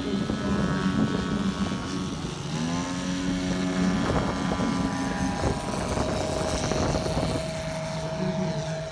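Engines of several large-scale radio-controlled WW2 warbird models running on the ground as they taxi and take off. One engine's pitch steps up about two and a half seconds in as it is throttled up, and a second, higher steady engine note joins about six seconds in.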